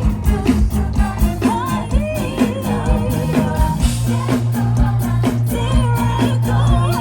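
Live pop music over a concert PA. A steady kick-drum beat about twice a second and a held bass line, with a singer's voice over it.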